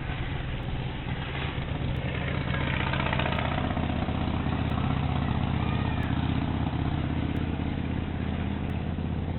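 An engine running steadily, growing louder about two and a half seconds in and easing off near the end.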